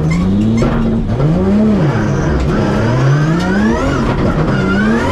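2JZ straight-six engine of a drift car, heard from inside the cockpit, revving up and down several times on track, with a long climb in revs in the second half.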